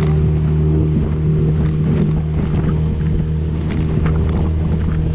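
A small boat's two-stroke outboard motor running steadily while trolling, a constant drone, with wind on the microphone and water slapping the hull.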